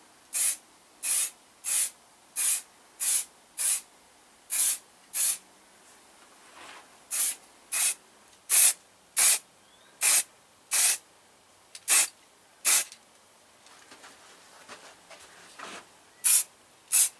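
Aerosol spray paint can hissing in short bursts, roughly one or two a second with a couple of brief pauses, as a very light mist coat is dusted over a primed plastic motorcycle fairing panel.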